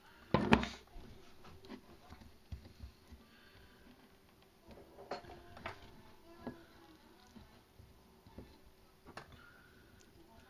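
Hands handling a hard lure mold on a tabletop: one sharp knock about half a second in, then a few scattered light clicks and taps as fingers pick at the mold.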